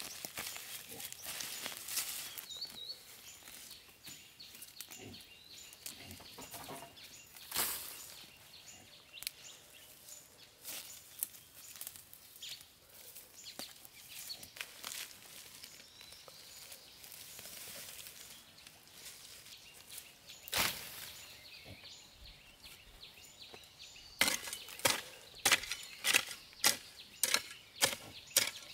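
Weeds being pulled up by hand from the soil, with scattered rustling and tearing of stems and roots. Near the end a hoe starts chopping into the soil, with quick repeated strikes about two a second.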